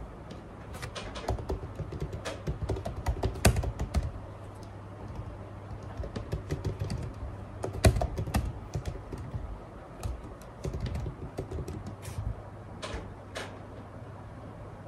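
Rapid, irregular light clicks and taps in uneven clusters, busiest in the first few seconds and again around the middle, over a steady low hum.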